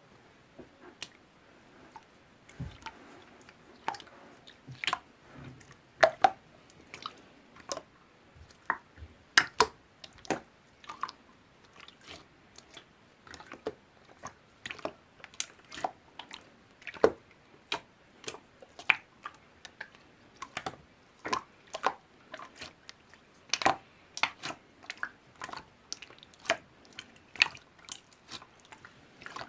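Irregular sharp clicks and taps, usually one to a few a second, uneven in loudness, with no speech.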